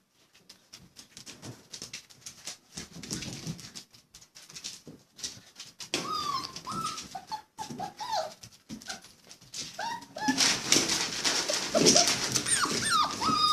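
5.5-week-old Labrador puppies whimpering and crying in short high whines, starting about six seconds in and getting louder and more frequent near the end, over a run of small clicks and scuffles as they play.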